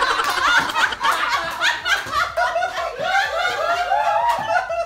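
A group of people laughing loudly together, several voices overlapping.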